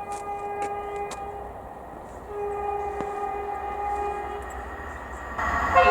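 Train horn sounding two long chord-like blasts, the first about a second long and the second about two seconds, then a much louder blast starting near the end.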